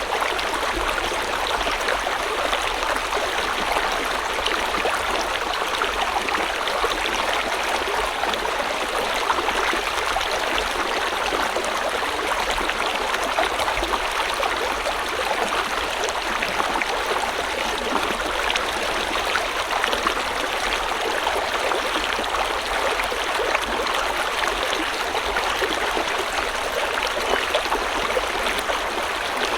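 River water flowing steadily over rocks: an even rushing with fine splashing and gurgling, unchanging throughout.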